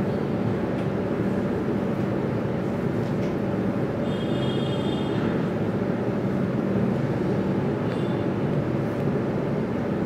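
Steady low background rumble, even in level throughout, with a faint high tone briefly about four seconds in.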